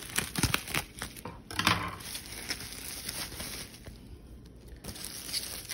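Plastic bubble wrap and tulle netting being handled and pulled open, crinkling and rustling in quick irregular bursts. The rustling is busiest in the first two seconds and eases to a quieter lull about four seconds in.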